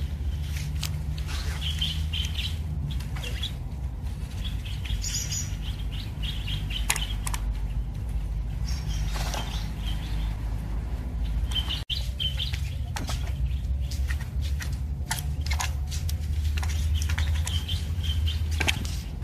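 Small birds chirping in short repeated calls over a steady low rumble, with scattered clicks and rustles from handling the plastic drone and its foam packaging.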